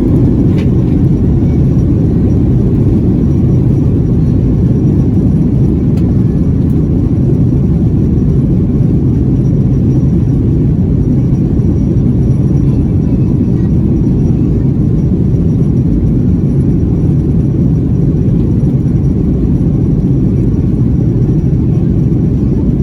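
Steady, loud low rumble inside the cabin of a Boeing 737-900ER: its CFM56-7B jet engines running at high power, with air rushing past the fuselage.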